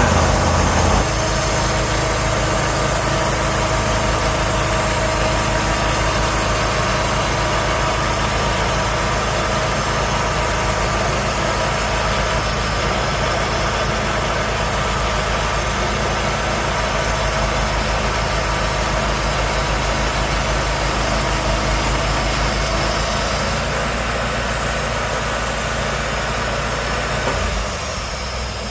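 An engine running steadily, its pitch shifting slightly about a second in and the sound dropping a little near the end.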